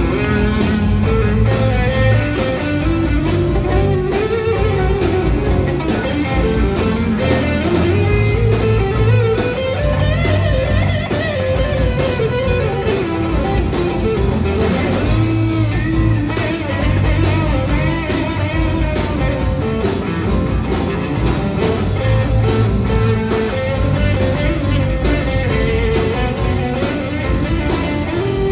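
Live band playing, led by an electric guitar whose melodic line bends up and down over a steady drum beat, with bass and keyboards underneath.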